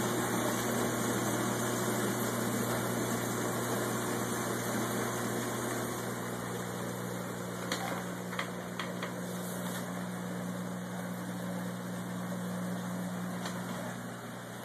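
Reef aquarium sump equipment running: the protein skimmer's pump gives a steady low hum under a wash of running, bubbling water. A few faint clicks come about halfway through.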